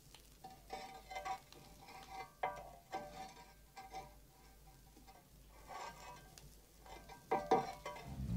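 Faint, irregular metallic scrapes and clanks of a fireman's coal shovel working at a steam locomotive's firebox, a few of them ringing briefly.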